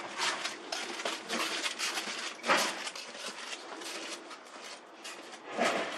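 Irregular scuffs, scrapes and knocks as a tank water heater is walked and turned by hand. Louder knocks come about two and a half seconds in and again near the end.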